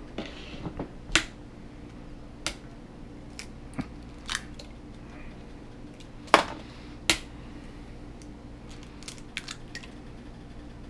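Raw eggs being cracked against the rim of a glass bowl: a series of sharp taps, the loudest about six seconds in, then small clicks of shell being pulled apart near the end.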